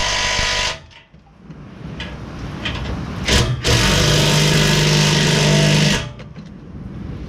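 Power tool running in two bursts as the car's exhaust clamp nuts are tightened: the first run stops suddenly under a second in, and after a short rattle a second run goes for about two seconds and then cuts off.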